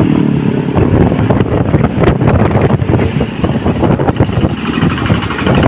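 Wind buffeting the microphone of a moving motorcycle, over the bike's engine running at road speed.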